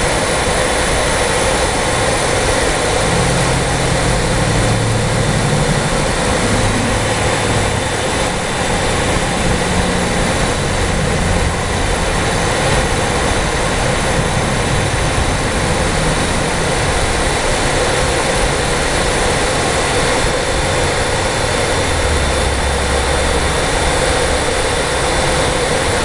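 The indoor blower of a Goodman packaged heat pump, driven by an X13 ECM fan motor, running steadily at fan speed: a constant rush of air with a few faint steady tones over it.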